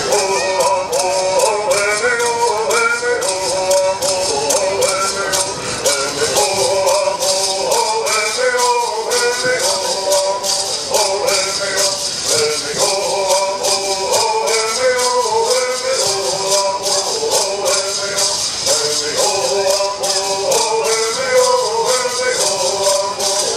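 Southern California Native American bird songs: a group of singers singing in unison to a rapid, steady shaking of gourd rattles.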